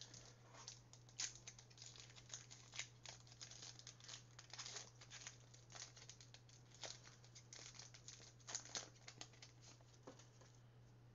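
Foil wrapper of a Panini Mosaic trading-card pack being torn open and crinkled in the hands, an irregular run of faint crackles and sharp ticks that dies away about ten seconds in.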